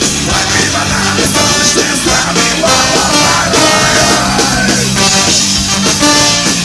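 Live punk-rock band playing loudly, an instrumental stretch with no sung words.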